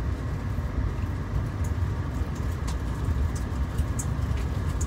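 Inside a car's cabin while driving slowly over a snow-dusted gravel road: a steady low rumble of engine and tyre noise, with a few faint clicks.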